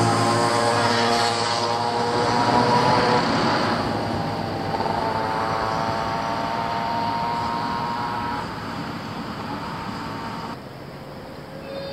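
A Tobu 6050 series electric train running away along the track. Its running noise and a steady multi-tone whine fade gradually, and the whine stops about eight seconds in.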